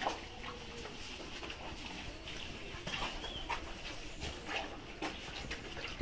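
Dairy cows feeding from a concrete trough of cut green grass: scattered short clicks and rustles of fodder being pulled and chewed, with a faint high chirp about three seconds in.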